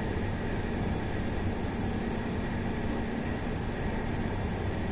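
Steady background hum and low rumble with no distinct events, and one faint click about two seconds in.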